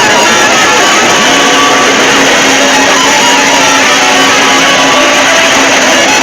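Over-amplified, clipped emergency-alert soundtrack: a dense jumble of overlapping tones that comes across as distorted, guitar-like music, very loud throughout. A steady low tone joins about a second in.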